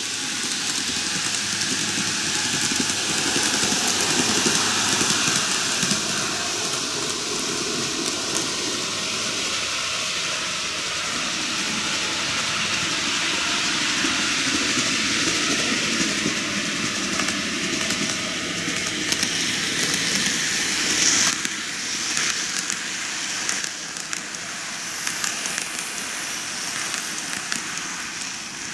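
N-gauge model trains, a JR 485 series 3000 and an E653 series 1100, running on TOMIX canted track: a steady rolling noise of metal wheels on the rails with fine crackling ticks through it.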